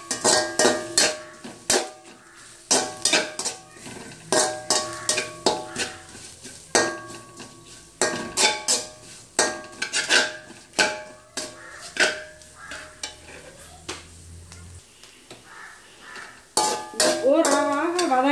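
Steel spatula scraping and clanking against a large aluminium kadai while sautéing onions with spice powders, irregular strokes roughly two a second, each with a short metallic ring.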